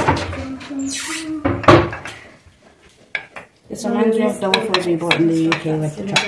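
A knife clicking and scraping against a plate while spreading chocolate spread on a waffle, with several sharp clicks and a brief scrape in the first two seconds. Soft voices talk in the second half.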